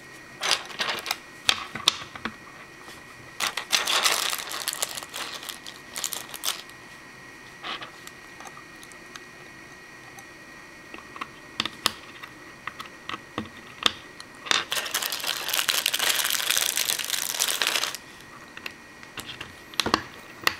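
Small plastic Lego Bionicle pieces clicking and tapping as they are handled and snapped together, with a short stretch of rustling about four seconds in and a longer one from about fourteen to eighteen seconds.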